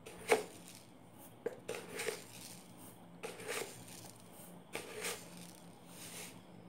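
Spoonfuls of sugar being scooped and tipped into a glass bowl of flour: several short, soft scraping and pouring sounds, with a sharper tap of the spoon near the start.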